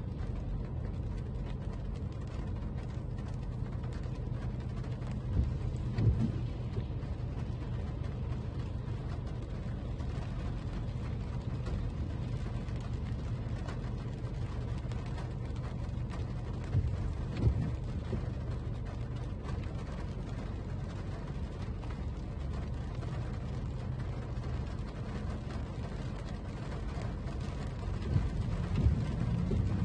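Toyota Camry driving on a wet road in the rain: a steady low rumble of road and engine noise, with a faint hiss above it. Two brief thumps break in, one about six seconds in and one about seventeen, and the rumble grows louder near the end.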